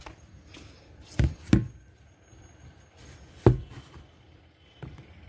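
Three dull thumps: two close together about a second in, and a louder one about three and a half seconds in, over a faint steady background.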